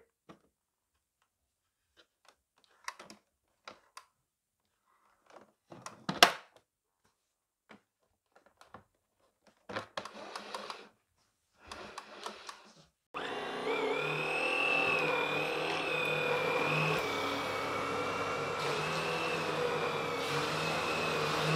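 Scattered clicks and knocks of parts being handled and fitted, then about thirteen seconds in a Vorwerk Kobold VT300 vacuum cleaner's motor switches on abruptly and runs steadily with a high whine.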